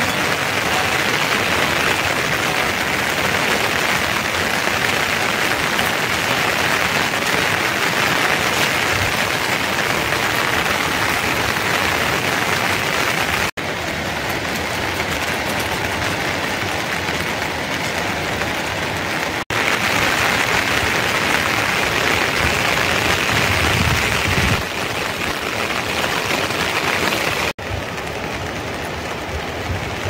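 Steady rain falling, an even hiss, cut off for an instant three times.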